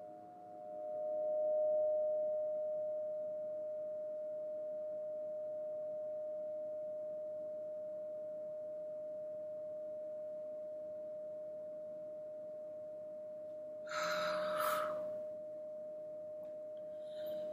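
A single steady pure tone from a sound-healing instrument, swelling about two seconds in and then held. About fourteen seconds in a short breathy whoosh passes over it, with a fainter one just before the end.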